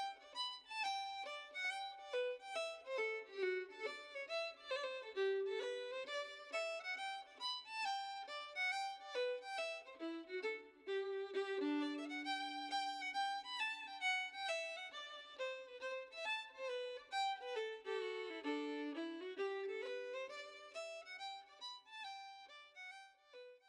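Solo violin music: a flowing melody of running and held notes, with a few passages of two notes played together, fading out near the end.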